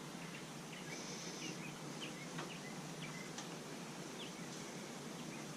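Faint bird chirps over a quiet, steady background hiss, with a couple of faint clicks.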